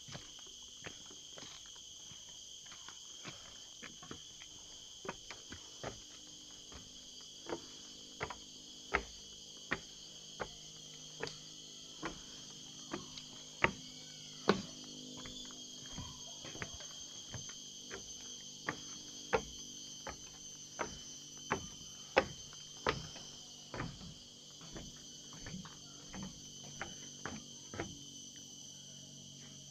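Footsteps on the forest floor, irregular at about one or two a second, over a steady high-pitched chorus of insects in Bornean tropical forest.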